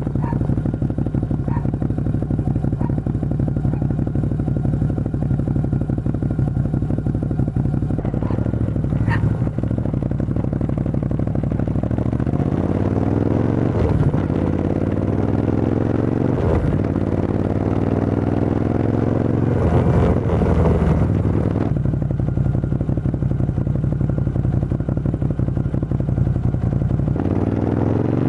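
Motorcycle with an aftermarket Arrow full exhaust system, its dB killer removed, idling steadily. From about twelve seconds in it is revved in a series of throttle blips, the pitch rising and falling each time, with one more blip near the end.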